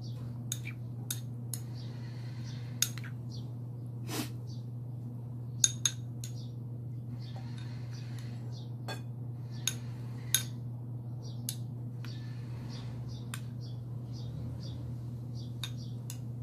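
Metal spoon clinking and scraping against a ceramic bowl and plate while stirring and scooping food, in irregular sharp clinks, a few of them loud, over a steady low hum.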